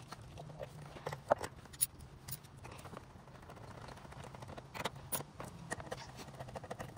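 Scattered light clicks and taps of a hand tool working the airbox's 10 mm hold-down bolts, a few sharper ones about a second in and again around five seconds, over a faint low hum.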